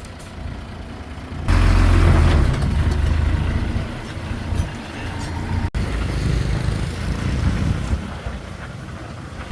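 Diesel engine of heavy construction machinery running, turning much louder and heavier about one and a half seconds in, with a momentary break a little past the middle.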